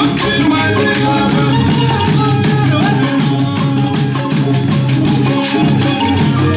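Traditional Ugandan drum ensemble playing a fast, even rhythm, with a shaken, rattling percussion line on top.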